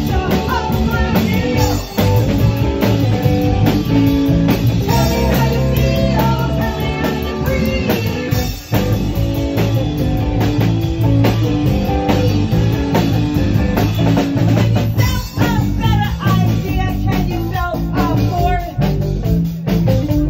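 Live rock band playing loudly: a woman singing into a microphone over electric guitar and a drum kit.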